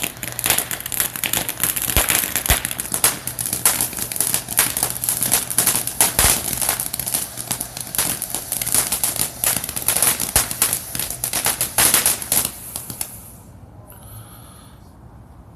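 Dragon Slayer firework fountain burning with a dense, loud crackle of rapid pops, cutting off suddenly about thirteen seconds in as it burns out.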